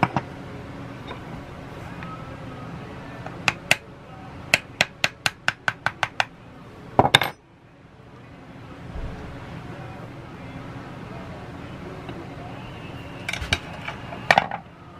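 Metal hand tools clinking and tapping on a Kohler K181 engine as its valve cover is worked off: a couple of clicks, then a quick even run of about nine light taps, a sharper clank about seven seconds in, and a few more clinks near the end.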